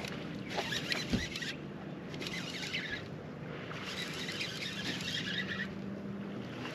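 Fishing reel cranked in short bursts of a second or two, winding in a hooked bass against a hard-bent rod, the fish weighed down with a load of moss. There is a thump about a second in.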